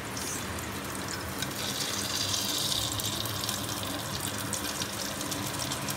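Hot ghee and oil in an aluminium pressure cooker sizzling as whole spices, a bay leaf and cloves, are dropped in. The hiss grows louder and brighter for a couple of seconds from about one and a half seconds in, then settles back to a steady hiss.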